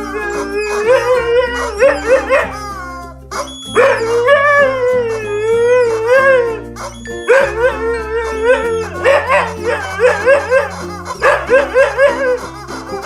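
Dog howling in wavering, singing calls: a run of short howls, one long howl that rises and falls, then more short howls, over background music.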